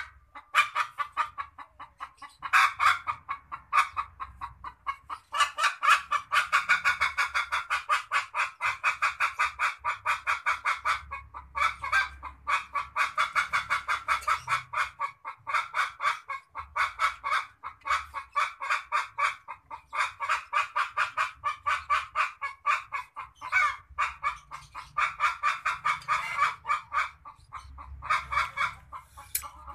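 Otters chirping: rapid runs of short, high squeaking calls, several a second, broken by a few brief pauses.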